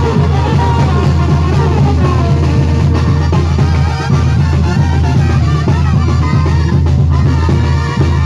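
Live band music through a loud PA system: a brass section of trumpets and trombones playing over drums and a heavy bass.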